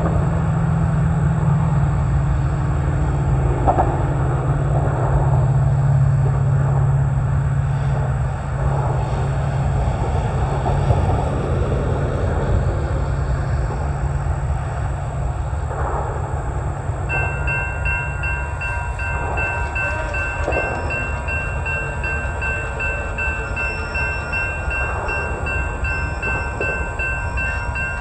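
Wind rumbling on the microphone; about two-thirds of the way in, a railroad grade-crossing warning bell starts ringing rapidly and steadily as the crossing signals activate for an approaching train.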